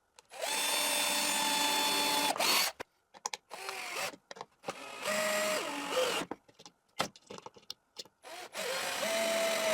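Cordless drill/driver driving screws into plywood in several runs of steady motor whine. There is one long run at the start, then shorter runs with brief stops and clicks, and one run drops in pitch as it ends.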